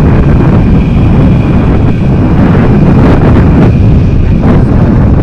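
Heavy wind buffeting on the microphone while riding a Yamaha DT100 trail bike, with the bike's small two-stroke single-cylinder engine running steadily beneath it.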